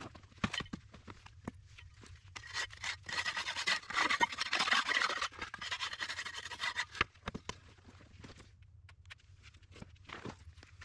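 Hand trowel scraping and smoothing wet concrete on a footing: scattered scrapes and taps, with a stretch of dense scraping from about two seconds in to about seven seconds.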